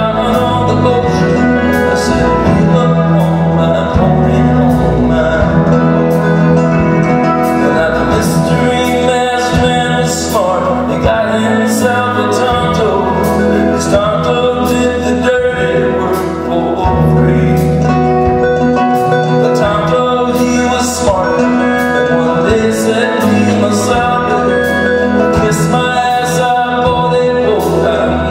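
A live band playing an acoustic song, with singing.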